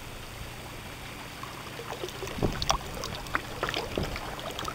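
Water churning and splashing at a kayak's stern, stirred by a small electric motor's propeller, with scattered sharper splashes about two and a half and four seconds in.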